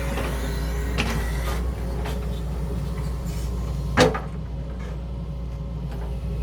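Excavator's diesel engine running steadily, with hard knocks as rock is handled by the bucket: a sharp one about a second in and a louder one about four seconds in.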